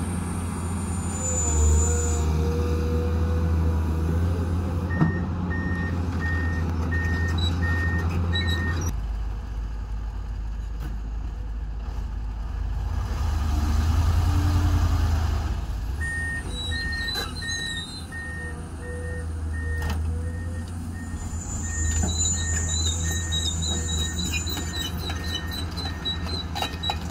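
Heavy diesel dump truck's engine running steadily while its raised tipper bed unloads dirt, swelling louder about halfway through. A warning beeper sounds about twice a second in two spells, one early and a longer one in the second half.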